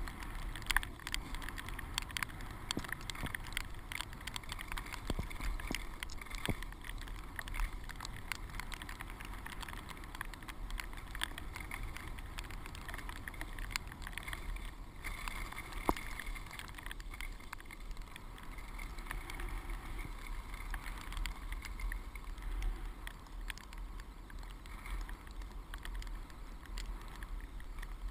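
Skis sliding through snow, a steady swishing with scattered clicks and knocks, under a constant low wind rumble on the helmet camera's microphone.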